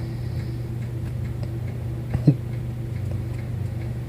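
A woman snoring in her sleep, a steady low drone broken by one short, loud snort a little over two seconds in.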